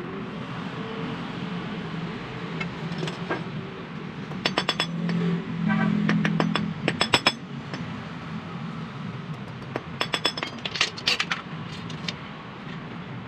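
Metal parts of a car power window regulator being handled on a concrete floor, clinking and clanking in three bunches of sharp knocks that ring briefly.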